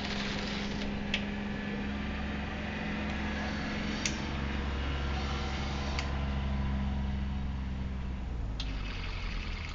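Steady electric motor hum of a telemax tracked bomb-disposal robot as it drives and manoeuvres, swelling a couple of seconds in and easing off near the end, with four sharp clicks.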